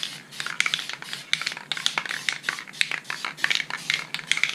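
An aerosol spray-paint can being shaken, its mixing ball rattling in quick, irregular clacks; the can is nearly empty.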